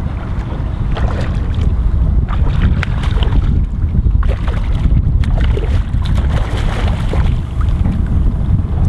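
Wind buffeting the microphone in a steady low rumble, with repeated short splashes and slaps of water from about a second in.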